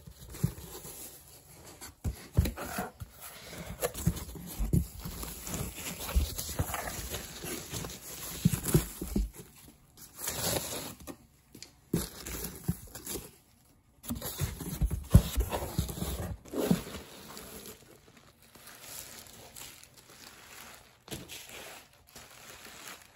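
Hands rustling and crinkling a foam packing sheet and bubble wrap inside a cardboard shipping box, in uneven bursts with short bumps against the box.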